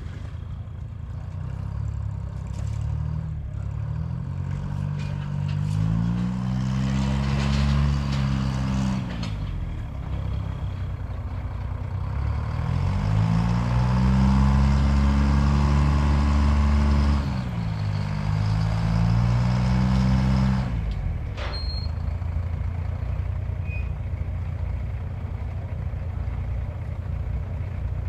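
Motor vehicle engine idling in a repair shop and revved up twice, each time climbing in pitch, holding for a few seconds, then dropping back to idle. A few sharp clicks and a short high beep follow the second rev.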